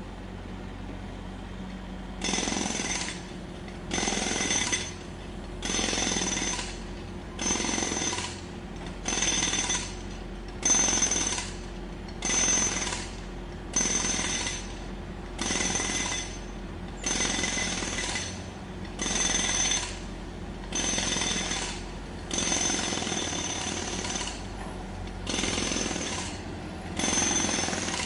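Jackhammer running in short bursts of about a second each, starting about two seconds in and repeating roughly every two seconds, some fifteen times, with a ringing, rattling pitch during each burst. A steady low engine hum runs underneath.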